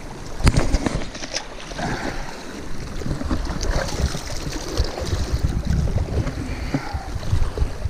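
Wind buffeting the camera's microphone: an uneven low rumble, with one sudden sharp sound about half a second in.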